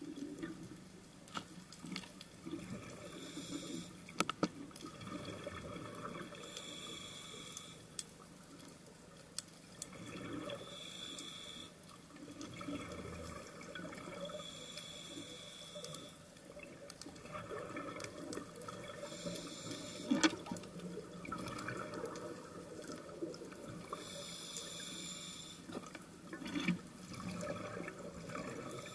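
Scuba diver breathing through a regulator underwater: a hiss on each inhalation, about every four to five seconds, with bubbling and gurgling of exhaled air between breaths.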